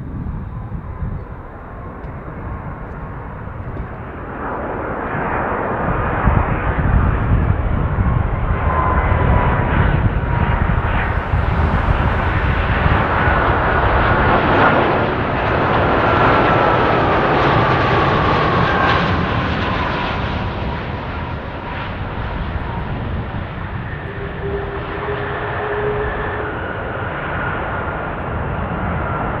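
Airbus A330 jet airliner on final approach with gear down, its twin engines' rush building as it comes close and holding loud through the middle. A thin engine whine slides down in pitch as it passes, then the noise eases off.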